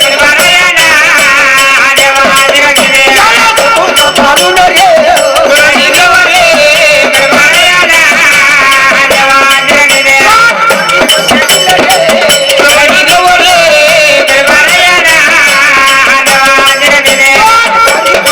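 Marathi folk devotional music: a wavering, gliding melody over a steady drone, with fast, continuous rattling percussion.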